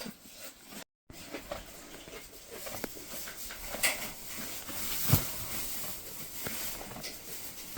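A doe goat in labour, shifting and straining through a contraction: soft rustling with scattered light knocks, the two loudest about four and five seconds in.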